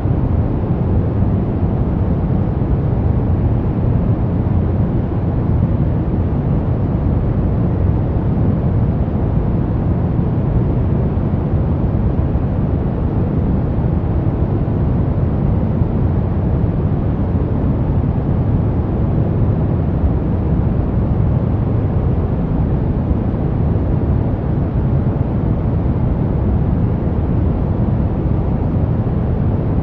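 Brown noise: a steady, even rumbling hiss, strongest in the low bass and fading toward the treble, with no changes.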